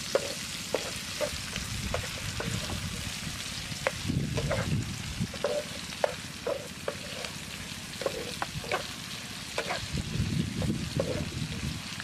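Chicken liver sizzling as it fries in a non-stick pan, with scattered clicks and scrapes as it is stirred.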